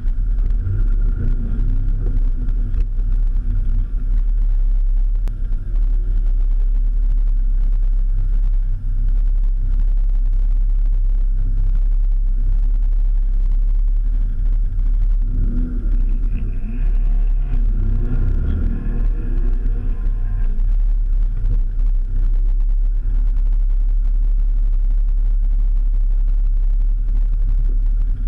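Mitsubishi 3000GT VR-4's twin-turbo V6 idling, heard inside the cabin as a steady low rumble. About halfway through, engine sound swells, with pitch rising and falling for about five seconds before settling back to idle.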